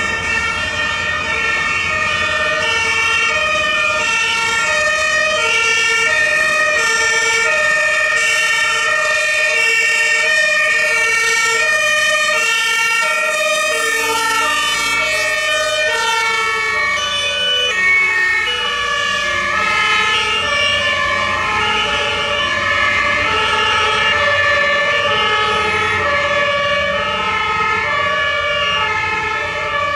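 German two-tone emergency-vehicle sirens (Martinshorn) sounding continuously, stepping evenly between a high and a low tone. More than one horn is sounding at once, out of step with each other, over a low vehicle rumble.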